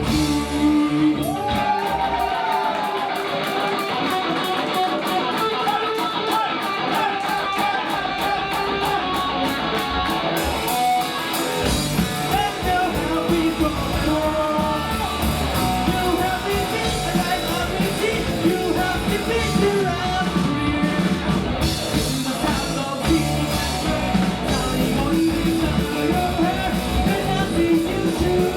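Rock song with electric guitar and a singing voice. The low end of the band drops away for the first ten seconds or so, then the full band comes back in about eleven seconds in.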